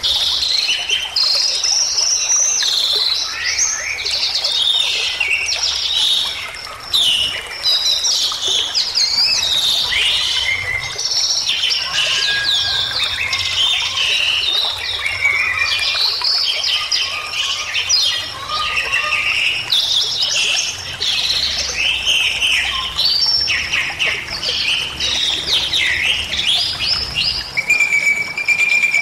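Bali myna in full, unbroken song: a fast run of varied chirps, trills and whistles, ending in a long held whistle.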